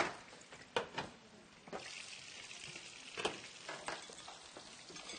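Beef-and-pork burger patty sizzling as it pan-grills in a frying pan, the sizzle rising about two seconds in and holding steady. A few sharp clicks of pan and utensils sound over it.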